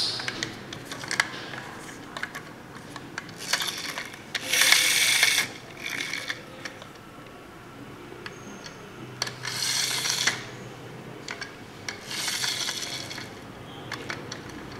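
Friction motors of plastic toy trucks whirring as a hand pushes them along a table, in three bursts of about a second, the loudest about five seconds in, with light clicks and knocks of the plastic between.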